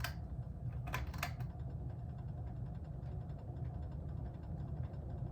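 Mid-80s 52-inch hugger ceiling fan, believed to be a Litex CloseUp, running on medium with a steady low motor hum, after a few sharp clicks about a second in. A fast, fine rubbing tick runs under the hum from a wire inside the housing that is touching the top of the motor.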